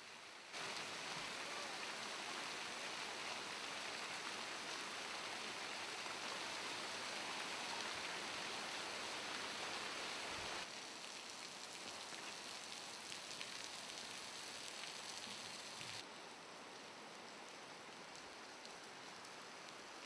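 Transient snowmelt waterfall splashing and spattering down a rock cliff face: a steady hiss of falling water with scattered drips. It is louder for the first half, then steps down abruptly twice.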